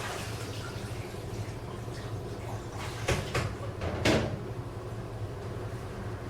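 A washing machine running with a steady low hum, while dishes are washed by hand over it: a few knocks and splashes of dishes and water come about three seconds in, and a louder one about a second later.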